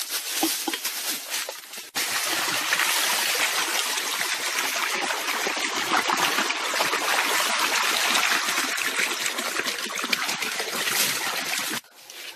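Water pouring out of plastic jerry cans and splashing into a small sunken cement-pipe water hole. It is a steady gush that starts about two seconds in and cuts off sharply near the end.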